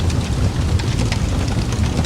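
Wood fire crackling in a fireplace: many scattered sharp pops and crackles over a steady low rumble.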